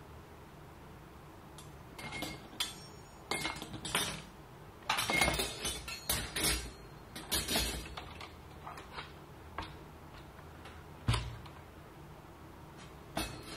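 Parts being handled on a wooden workbench: a run of light clinks and clatters, then a single sharper knock about eleven seconds in and another just before the end, as long thin strips and a small RC truck are moved and set down.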